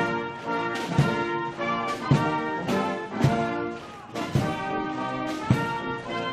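Military brass band playing a march, full brass chords over a bass drum struck about once a second.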